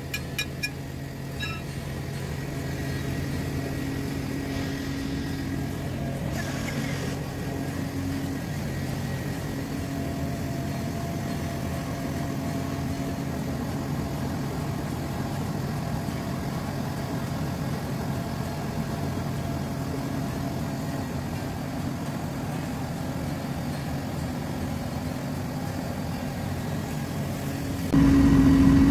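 Engine running steadily at an even speed, most likely the tractor that powers the feed grinder, with a few light knocks about a second in. It gets noticeably louder just before the end.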